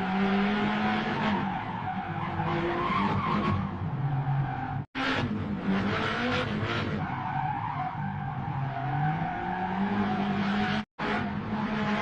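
Car driving at speed, tyre noise with a motor tone that rises and falls. The sound cuts out sharply for an instant twice, about five seconds in and again near the end, like edit cuts between clips.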